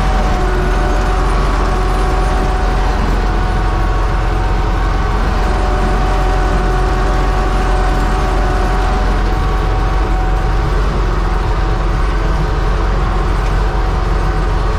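UTB Universal 650 tractor running steadily, with a constant whine over the engine's low rumble.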